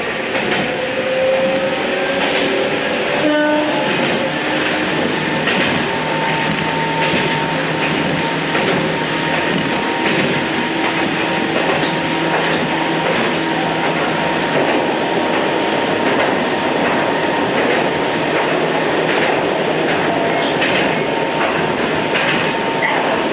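Toyama Chiho Railway 14760-series electric train running between stations, heard from the cab end: a steady rumble of wheels on rail with scattered clicks over rail joints. A short tone sounds about three seconds in.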